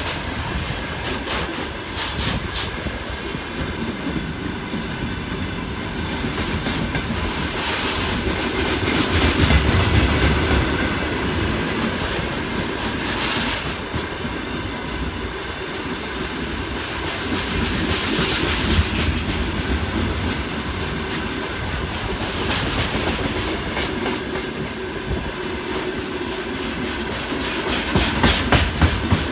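Freight train's gondola wagons rolling past at close range: a steady rumble with the wheels clattering rhythmically over the rail joints.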